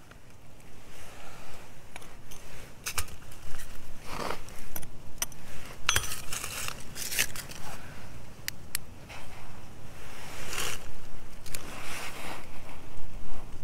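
Loose soil and small stones being scraped and shifted by hand, with scattered sharp clicks of pebbles knocking together.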